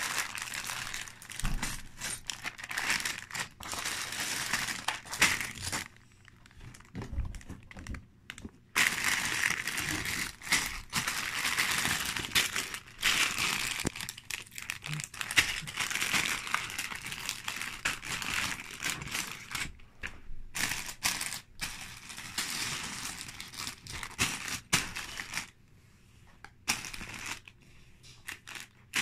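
Sealed plastic bags of LEGO pieces crinkling and rustling as they are handled, in irregular bursts with a few short pauses.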